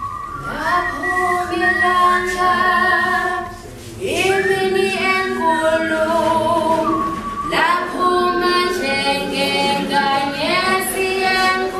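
A group of voices singing unaccompanied in harmony, in long held phrases with a short break a few seconds in.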